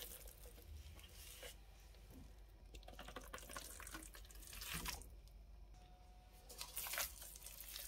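Faint handling sounds of sticky wheat-gluten dough being scraped out of a food processor bowl and dropped into a wet glass bowl: a few brief, soft wet noises.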